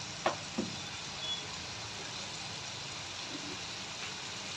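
Steady hiss of chicken chilli cooking in a kadhai on a gas stove, with two sharp knocks in the first second.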